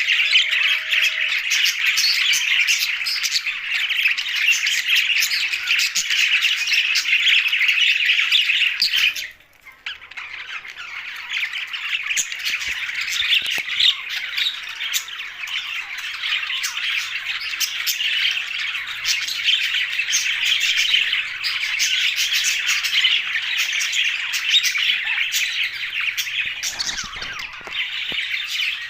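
A flock of budgerigars chattering and chirping in dense, overlapping calls. The chatter breaks off for a moment about nine seconds in, then builds back up.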